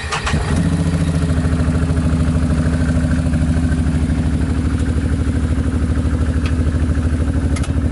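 2015 Can-Am Maverick 1000R Turbo's turbocharged V-twin engine starting from the push-button starter, catching within about half a second and then idling steadily with an even pulse.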